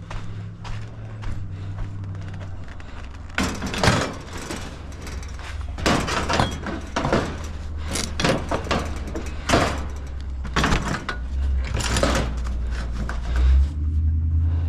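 A run of clanks, knocks and scrapes from scrap metal being moved and handled, over a steady low hum. The clanks come thickest from a few seconds in until near the end.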